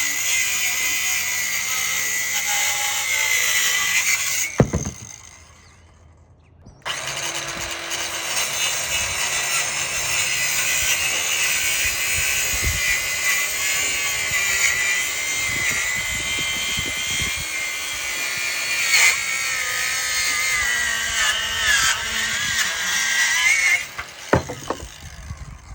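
Ryobi 18V ONE+ 4-1/2-inch cordless circular saw running and cutting wood, with a high whine. It stops with a thump about four and a half seconds in, starts again about two seconds later, and runs on with its pitch wavering and dipping as the blade works through the cut, then stops with another thump near the end.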